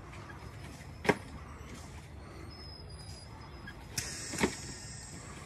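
Animatronic Halloween yard props working over a steady low background rumble: a sharp knock about a second in, then near four seconds a click, a brief hiss and a second knock, like a pneumatic prop firing.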